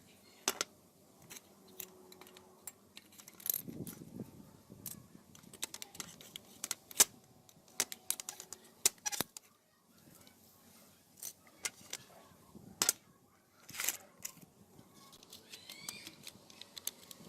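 Small metal parts and tools clicking and clinking at irregular intervals while being handled.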